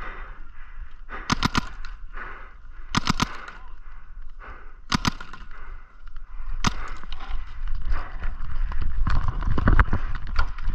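Paintball guns firing: sharp pops in quick bursts of two to four shots, then single shots further apart. Low rumbling handling noise from the player moving comes in near the end.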